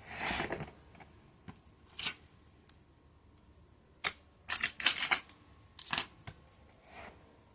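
Hard plastic clicks and short rattles of an upturned Roomba i2 robot vacuum being handled around its brush area, a few separate knocks with a cluster of them in the middle.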